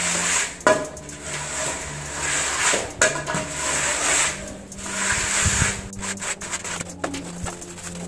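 A straightedge dragged back and forth over wet cement-and-sand mortar, screeding it level: repeated gritty scraping strokes, each swelling and fading over about a second.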